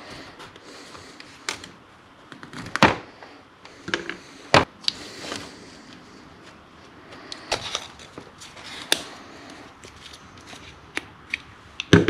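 Steel pick and hands working inside a backhoe hydraulic cylinder's steel gland, prying out the worn seals: scattered sharp clicks, taps and knocks of metal on metal, the loudest a few seconds in, with the part set down on a plastic tray near the end.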